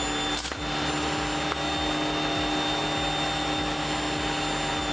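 3D-printed two-stage regenerative (side-channel) compressor running at speed with a steady high whine. About half a second in, a brief sharp crack as a 6 mm plastic BB is dropped into its intake and passes through; the whine carries on unchanged, the compressor undamaged.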